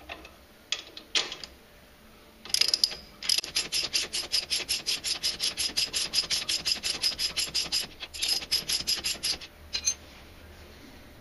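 Socket ratchet clicking fast and evenly, about six or seven clicks a second, as it is swung back and forth to run the nut off a strut-to-steering-knuckle clamp bolt. A few single clicks come first, and there is a short pause near the end.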